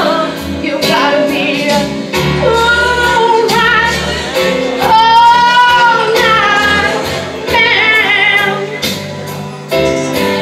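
A woman singing long held, wavering notes over a karaoke backing track.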